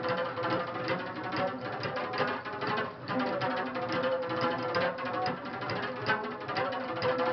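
Music with plucked string notes over a sustained bowed tone.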